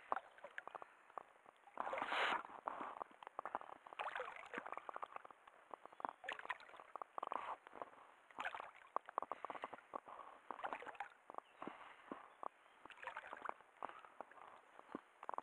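Small waves lapping and slapping against the side of a small boat, an irregular run of light splashes and gurgles, with a louder slosh about two seconds in.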